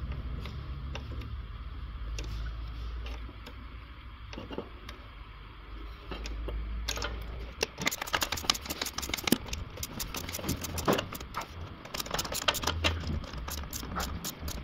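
Hand ratchet and socket clicking and clinking on the inverter's mounting bolts, in quick irregular runs from about halfway in, over a low steady hum.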